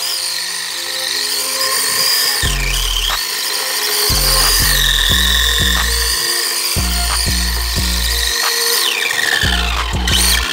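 High whine of an RC touring car's 13.5T brushless sensored electric motor, rising and falling in pitch with the throttle as the car is driven. Background music with a heavy bass beat plays along with it.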